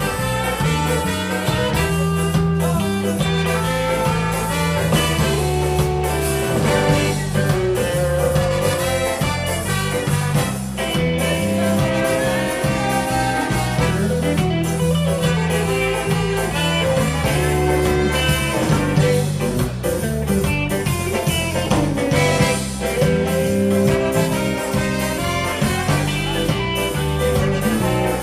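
Live ska-jazz band playing: drums and bass guitar under electric guitar and keyboards, with a horn section of saxophones, trumpet and trombone.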